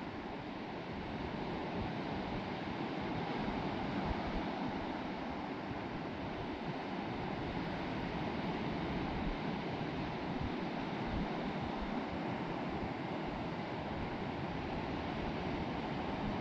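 Sea surf breaking and washing up a sandy beach: a steady rushing wash of waves, with wind rumbling on the microphone.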